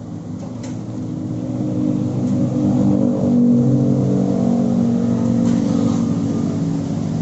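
Suzuki Jimny JB74's 1.5-litre four-cylinder engine running through a Forge Motorsport aftermarket exhaust, with a deep growl. It grows louder over the first three seconds or so, then holds.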